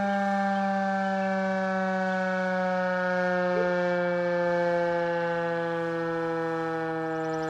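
Outdoor tornado warning siren sounding one steady note, its pitch sliding slowly downward as it winds down.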